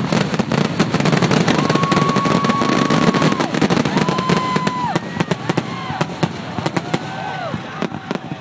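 Fireworks going off: a dense run of crackling pops and bangs. From about a second and a half in come several held whistles, each bending down in pitch as it ends, overlapping toward the end.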